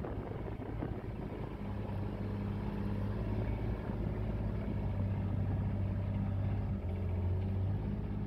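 Side-by-side utility vehicle's engine running steadily under way on a rough grass and mud track, heard from inside its cab. A low, even hum settles in about a second and a half in.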